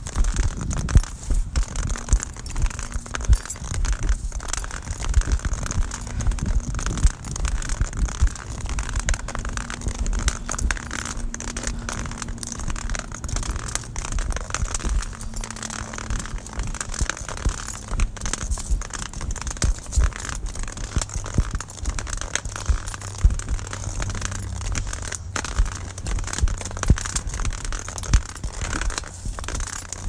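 Rustling and crackling handling noise over a low rumble, from a phone voice recorder carried while walking, with frequent short knocks and scrapes throughout.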